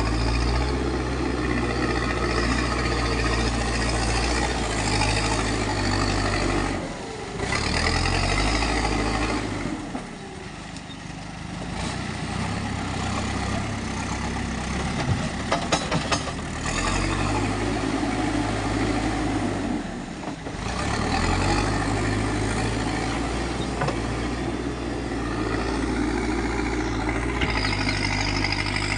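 Backhoe loader's diesel engine running and revving as it digs and loads soil, the engine note rising and falling, with a few sharp metallic clanks about halfway through.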